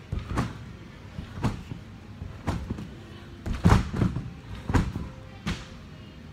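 Thuds of feet on a gym tumbling floor from someone doing flips: takeoffs and landings about once a second, the loudest about three and a half seconds in.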